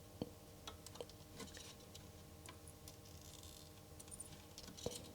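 Faint light clicks and taps of a soldering iron working pin headers on a circuit board, with a few short soft hisses of solder flux, over a steady low electrical hum.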